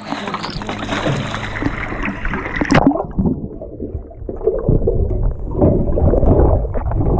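Water sloshing and splashing at the surface, over a steady low hum. About three seconds in the sound turns suddenly muffled as the camera goes under water, with underwater gurgling and bubbling.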